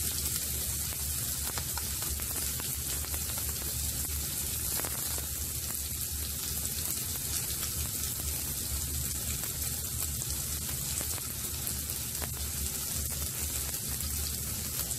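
Chopped onion frying in hot oil in a non-stick pan: a steady sizzle.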